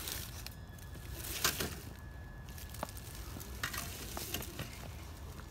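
Dry fallen leaves crackling and rustling under the tyres of a Traxxas TRX-4 Defender RC crawler and its trailer as it crawls over rocks, irregular crackles over a steady hiss. A faint thin whine from the truck's drivetrain runs through the first half or so.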